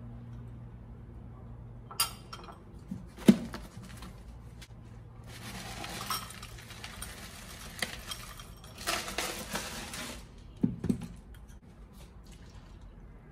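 Breakfast being made: a spoon clinks on a ceramic bowl, then granola is poured from a plastic cereal container into the bowl in two rattling pours of a few seconds each. A couple of knocks follow, as the container is set down.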